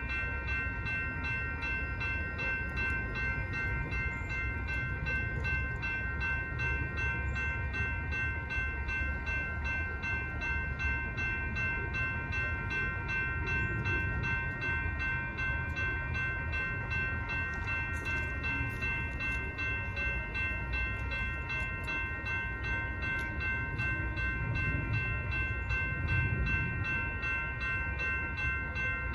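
Railroad crossing bell ringing steadily with quick, evenly repeated strikes while the crossing is active, over a low rumble.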